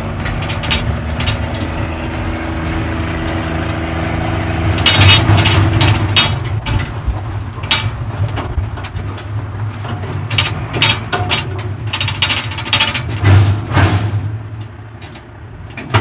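Ratchet straps being released and pulled off a loaded trailer: repeated metal clicking and clattering, heaviest in two spells, over a steady low hum.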